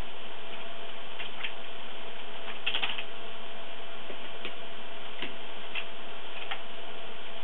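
Scattered computer keyboard keystrokes: single clicks spread out, with a quick run of a few keys about three seconds in. Under them runs a steady hiss with a faint steady tone.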